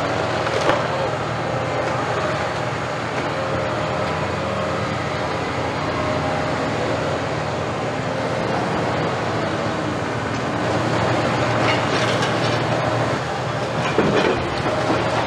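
Caterpillar 329E hydraulic excavator working: steady diesel engine hum with a hydraulic whine, and the clatter and knocks of demolition debris, sharper near the end.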